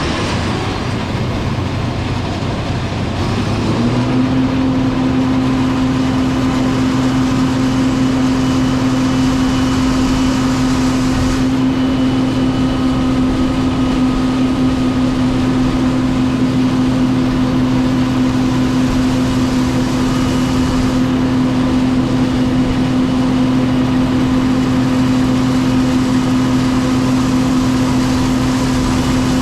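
John Deere 9570 STS combine harvester running with a steady mechanical hum. Its pitch rises a little about four seconds in as it speeds up, then holds steady.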